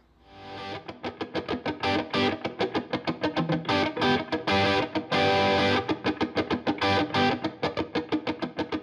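Channel intro music with a distorted electric guitar playing quick repeated notes, fading in over the first second.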